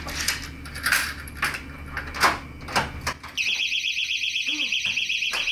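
Clicks and knocks of a hotel room door being handled. Then, about three and a half seconds in, a loud electronic alarm starts: a high, fast-warbling beep that holds steady.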